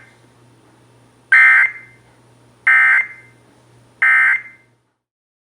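Emergency Alert System end-of-message tones: three short, identical bursts of buzzy data screech about a second and a half apart, the SAME 'NNNN' code that closes an EAS alert broadcast.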